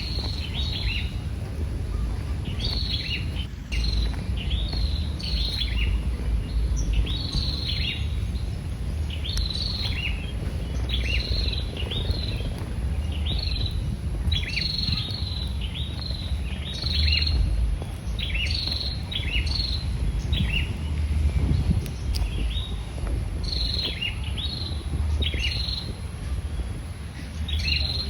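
Small birds chirping: short, falling chirps repeated about once a second, over a steady low rumble.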